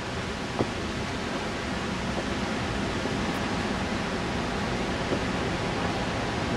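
Steady, even rushing noise with a single click about half a second in.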